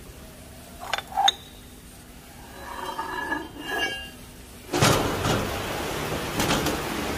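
Light metallic clinks of steel parts and tools around a milling machine table, two sharp ones about a second in, with some faint ringing after. From about five seconds in a sudden, louder, steady workshop noise takes over.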